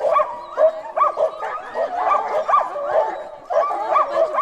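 A pack of sled dogs yipping and whining together, many voices overlapping in short rising-and-falling cries, with a brief lull about three seconds in.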